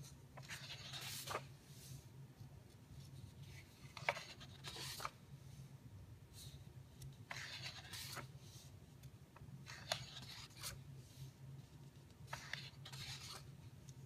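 Pages of a large hardcover photo book being turned one after another: short papery rustles, about six of them a couple of seconds apart, some ending in a sharp snap of the page.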